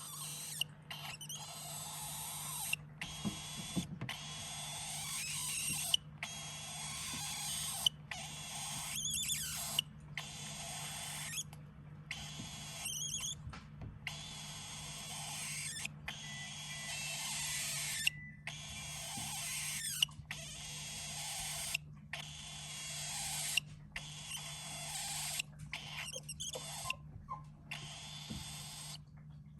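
Cockatiel chick snoring in deep sleep: a soft hissing rasp with each breath, repeating about every two seconds with short silent pauses between.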